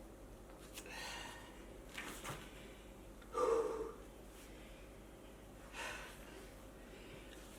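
A man breathing hard in short puffs and gasps, with one louder strained grunt about three and a half seconds in, from the effort of forcing a tyre onto a wheel rim.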